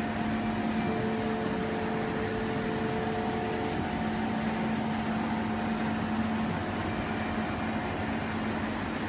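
Steady hum and hiss of a small laser cutting machine running, with a low steady tone and a higher one under it. A further tone comes in about a second in and stops a few seconds later.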